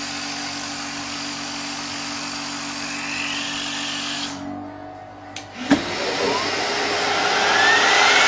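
Fan-Tom lens cutting machine running with a steady motor hum and whoosh, which stops about four seconds in. A click and a sharp knock follow, then the machine starts up again with a whine that rises in pitch.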